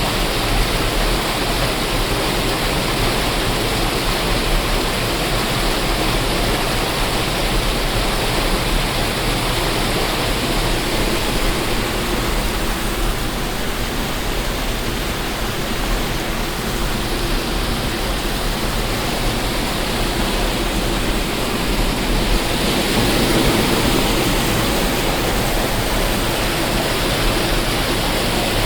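Waterfall: a steady, dense rush of falling water, swelling slightly about two-thirds of the way through.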